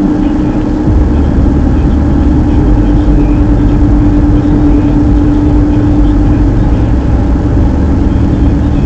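Car driving on a snowy road: a steady engine hum over low rumble from the tyres and road, the rumble growing louder about a second in.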